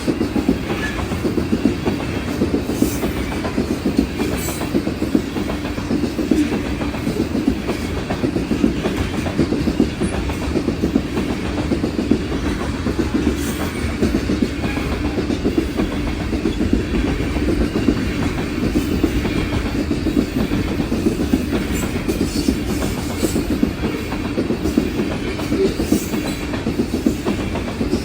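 BNSF freight train cars rolling past, with steady wheel clatter over the rail joints and a continuous low rumble.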